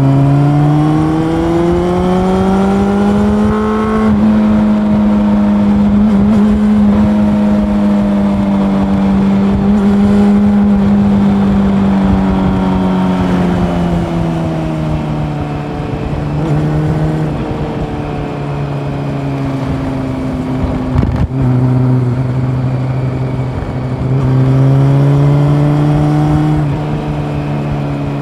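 Honda CB400 Super Four's inline-four engine under way: its pitch climbs under throttle over the first few seconds, holds steady, then falls as the throttle comes off, and climbs again near the end, over steady wind and road rush. A brief sharp click about two-thirds of the way in.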